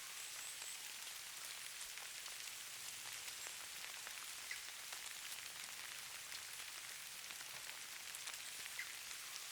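Light precipitation falling on surfaces: a steady soft hiss with many faint scattered ticks.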